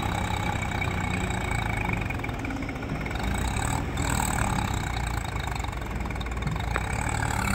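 Swaraj 855 4x4 tractor's three-cylinder diesel engine running steadily.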